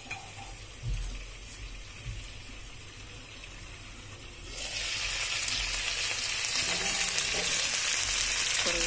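Marinated chicken pieces frying in oil and butter in a pan, the sizzle muffled under a glass lid at first, with a couple of soft low knocks. Past halfway the lid comes off and the sizzle jumps to a loud, bright, steady hiss.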